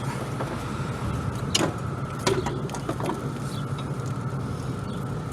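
Light metallic clicks and knocks from a car's front suspension parts and hand tools as a loosened sway bar link and strut are worked free, three separate knocks over a steady low hum.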